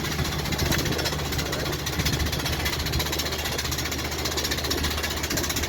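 Airbus A319 jet engine rattling: a fast, even clatter over a steady low hum.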